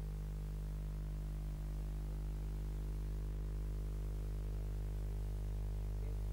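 Steady low electrical hum with faint hiss, unchanging throughout; no speech or music.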